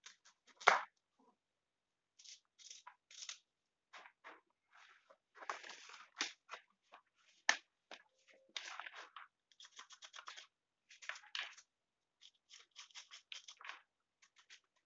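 Kitchen knife chopping an elephant foot yam flower into small pieces: clusters of short, crisp cutting strokes, with a sharper knock right at the start and another about halfway through.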